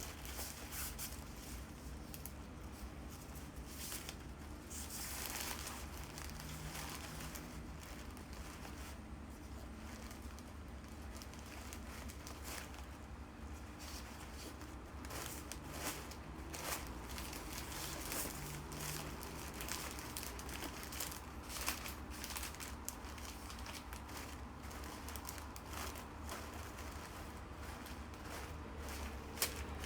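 Bouquet wrapping material crinkling and rustling as it is handled and folded, with many short crisp clicks and a longer rustle about five seconds in, over a steady low hum.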